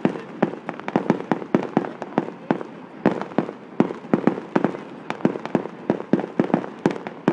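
Fireworks going off in a rapid, unbroken run of sharp bangs, several a second.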